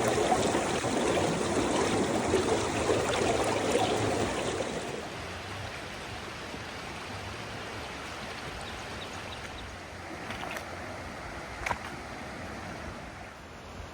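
Floodwater rushing, louder for the first five seconds and then a softer steady flow, with a short sharp knock near the end.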